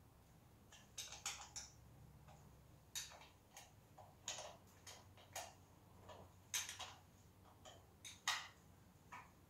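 Irregular light metallic clicks and ticks of a 13 mm wrench working bolts on an engine, one or two a second with short gaps, over a faint low hum.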